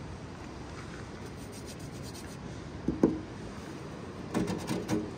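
Ice frozen on a car being scraped off, with scratchy rubbing strokes about three seconds in and a short run of them near the end.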